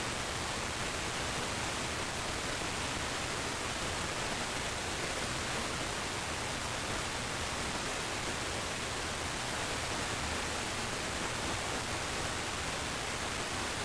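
Steady, even radio static hiss from a NOAA Weather Radio receiver, with no voice or tone on the channel.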